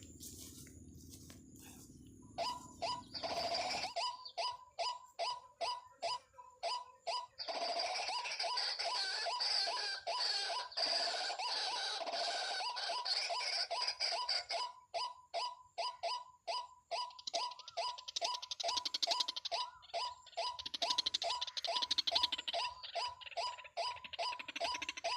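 Waterhen calls: a long series of evenly repeated notes, about two or three a second, starting about two seconds in, joined about seven seconds in by a dense, hissing chatter of higher calls.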